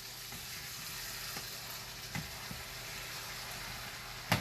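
Shredded chicken, onion and bell peppers sizzling steadily in a large pot as the last of the broth cooks off, with a few light knocks of a stirring utensil against the pot and a sharper click near the end.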